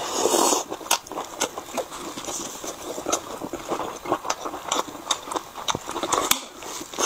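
Close-miked chewing of a mouthful of grilled sausage: wet mouth sounds with many small, irregular clicks and smacks. It is loudest in the first half second.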